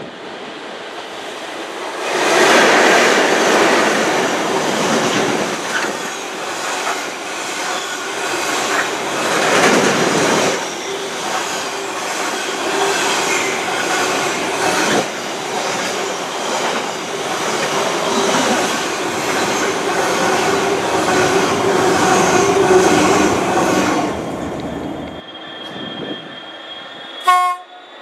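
Freightliner container train hauled by a pair of Class 90 electric locomotives passing at speed: a loud, continuous rumble and clatter of wagon wheels on the rails, with a steady whine. It builds about two seconds in and dies away about 24 seconds in.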